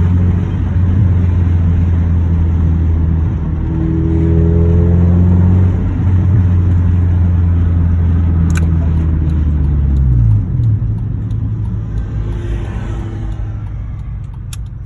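Car engine and road noise heard from inside the cabin while cruising, a steady low drone; about ten seconds in the engine note drops as the driver eases off, and it runs quieter after.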